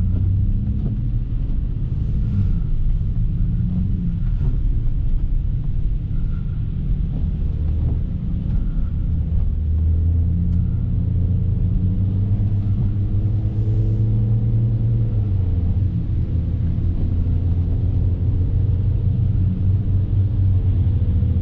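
BMW F30 335i's turbocharged N55 straight-six running under light throttle at low speed, its low note rising and falling gently, over a steady rumble of tyres on a snowy road.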